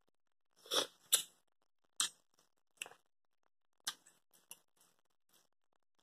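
Eating noises up close: a handful of short, wet mouth smacks and clicks from chewing and licking fingers, the loudest two close together about a second in.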